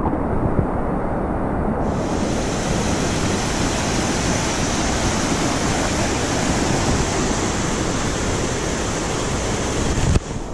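Rushing water of a rocky jungle stream running over rapids, a steady loud rush that turns brighter and hissier about two seconds in and stops abruptly near the end.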